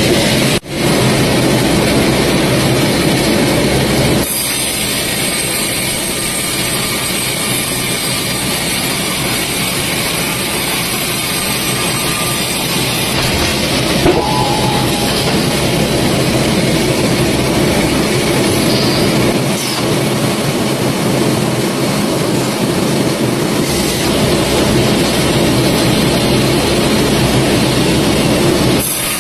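Sawmill machinery running loud and steady as a large log is cut, with an abrupt break about half a second in and another sudden change about four seconds in.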